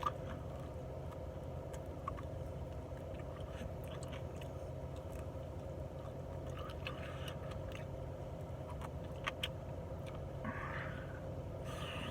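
A person chewing and biting into saucy chicken wings, with scattered wet mouth clicks and smacks, over a steady low background hum.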